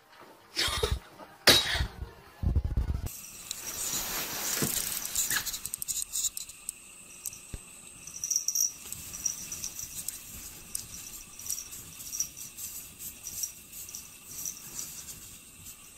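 Three short, loud sounds in the first three seconds, then the crackly scraping and crunching of packed snow as a cat claws and digs its way through a snow wall blocking a doorway.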